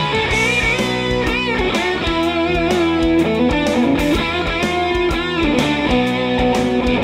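Soundtrack music led by electric guitar, with sustained, wavering notes over a steady drum beat.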